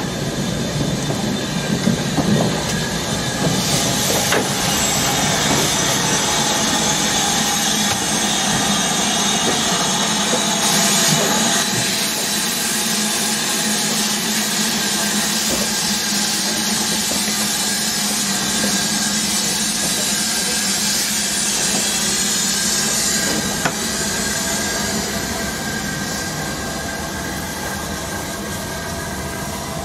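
LMS Stanier Black Five 4-6-0 steam locomotive No. 5428 moving slowly past close by, steam hissing, with a few knocks from its motion. The sound eases off near the end as it draws away.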